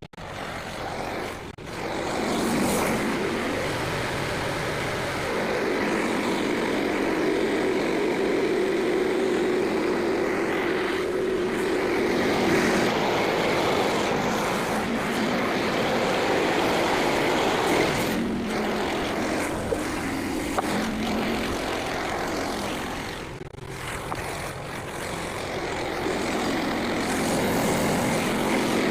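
Frontier OS27 portable band sawmill running steadily, its gas engine driving the band blade through a white pine log, with a brief dip in level about two-thirds of the way through.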